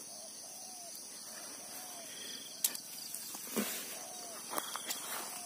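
Steady, high-pitched chorus of crickets and other insects, with faint short calls repeating every second or so. From about halfway in come a few rustling footsteps through grass and weeds.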